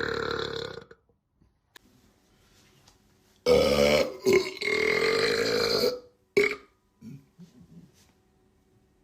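A man burping: one burp trails off about a second in, a long drawn-out burp runs from about three and a half seconds to six, and a short burp follows.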